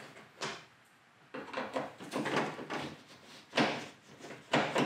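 Screwdriver working at the plastic corner light housing on a pickup's front corner: several short scrapes and clicks of metal on plastic.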